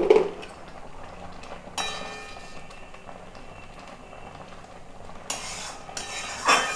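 Flat metal spatula stirring and scraping thick, simmering mango chutney in a metal kadai, with a sharp knock against the pan at the start and a few scraping strokes near the end over a low hiss from the cooking.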